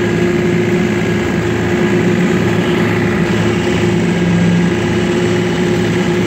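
John Deere 3025E compact tractor's three-cylinder diesel engine running steadily, heard from the operator's seat.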